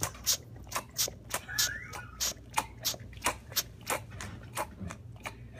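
Dog sucking hard on a red rubber Kong toy: a steady run of wet sucking smacks, about three a second, with a brief rising squeak about one and a half seconds in.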